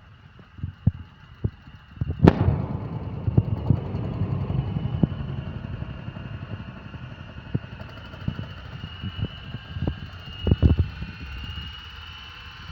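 FFC 23 disk mill running while grinding coffee, a steady mechanical noise with a thin high whine and scattered knocks. About two seconds in there is a sharp crack, after which the grinding noise gets louder and then slowly eases.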